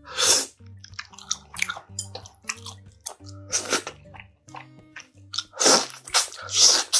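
Close-up eating sounds of braised spicy pork backbone held by hand: biting, sucking and chewing the meat off the bones, in a string of short, sharp wet sounds. Quiet background music with a low melody runs underneath.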